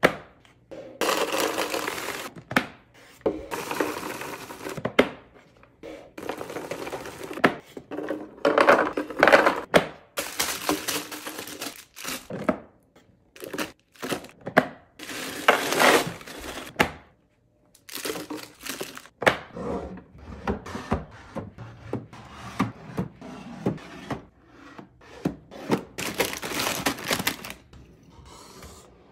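Snacks being loaded into clear plastic bins: dry snacks rattling into the bins, wrapped granola bars dropped in with their wrappers crinkling, and knocks and clicks as the bins and lids are set down on a stone counter. It comes as a string of short bursts and clicks with brief pauses between them.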